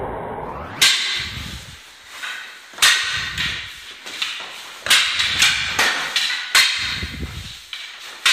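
Wooden training staffs clacking against each other in sparring: several sharp strikes, irregularly spaced, with a quicker run of them in the middle, and duller low thuds in between.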